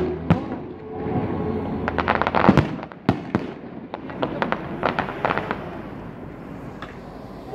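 Aerial fireworks shells bursting: a rapid volley of sharp bangs about two seconds in, a few single reports, then another quick string of bangs around five seconds, fading to fainter crackle near the end.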